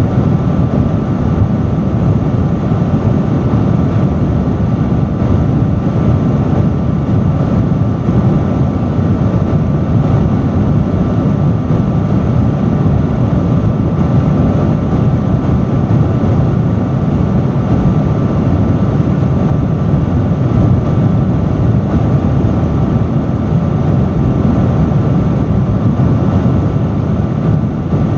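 Industrial fan running steadily at high speed: a loud, unbroken rush of airflow, deepest in the low range, with a faint steady whine from the fan's motor and blades.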